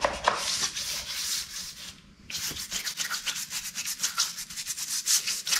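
Scrubbing grimy car interior trim pieces with acetone to strip the dirt before dyeing: quick repeated rubbing strokes, with a short break about two seconds in.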